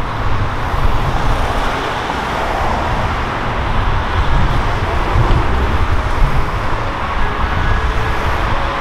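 Steady street traffic noise with gusty wind buffeting the microphone.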